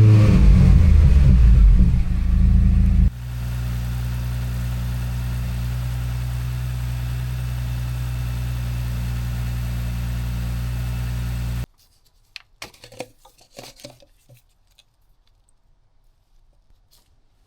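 Porsche Macan S twin-turbo V6 starting with a loud flare for about three seconds, then idling steadily, likely running the engine-flush additive through the oil. It is switched off abruptly about twelve seconds in, leaving only a few faint clicks.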